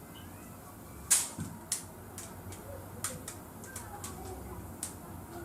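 A series of sharp, irregular clicks, about a dozen over five seconds, the loudest about a second in.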